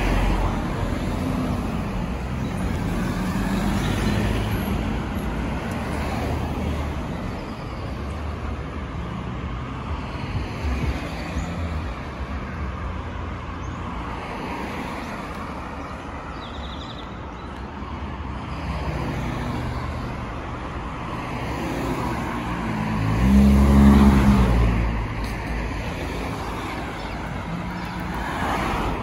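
Road traffic on a busy main road: cars passing one after another, swelling and fading. About four-fifths of the way in, one vehicle passes close, the loudest moment, with a low engine note.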